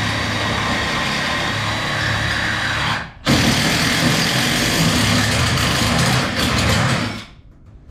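Cordless drill running under load, boring a hole through the tubing and bracket. It stops for a moment about three seconds in, starts again, and stops near the end.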